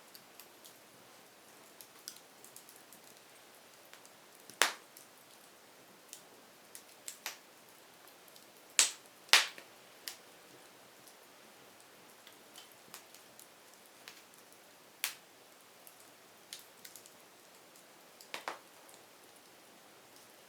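Wood fire crackling: irregular sharp pops and snaps of burning firewood over a faint steady hiss, the loudest pops about a third and halfway through, with smaller ticks between.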